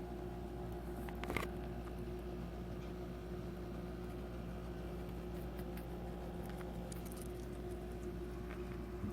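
Steady electrical hum with faint scattered ticks and rustles, and one sharp click about a second and a half in.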